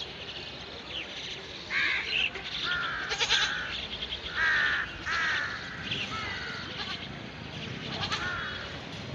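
Crows cawing: a string of short harsh calls, one every second or so.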